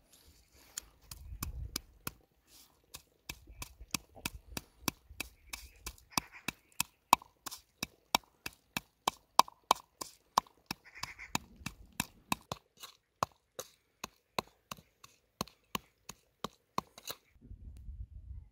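A flat stone pounding chopped vegetables in a thin metal bowl: sharp knocks with a metallic ring, about three a second, that stop abruptly near the end.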